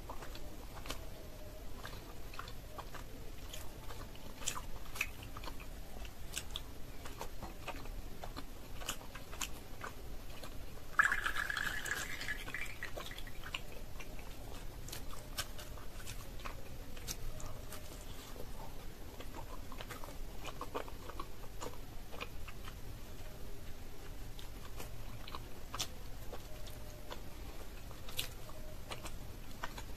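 Close-miked wet mouth sounds of a person eating soft, syrup-soaked orange rasgulla (kamalabhog): scattered small clicks and smacks of chewing. About eleven seconds in comes one louder sound that fades over a couple of seconds.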